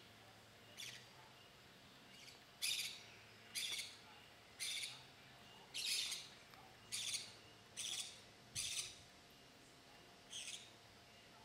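Short, high-pitched calls from a wild animal, repeated roughly once a second, nine in all, over a faint steady background.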